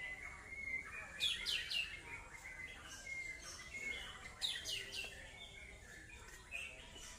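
White-rumped shama (murai batu) singing: thin whistled notes broken by quick, sharp downward-sweeping calls that come in two clusters, about a second in and again about four and a half seconds in.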